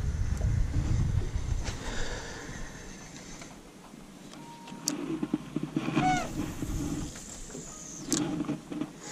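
Spinning reel being cranked to retrieve a cast, a rattling whirr in short spells with a few sharp clicks and a brief squeaky chirp about six seconds in. Wind buffets the microphone with a low rumble during the first two seconds.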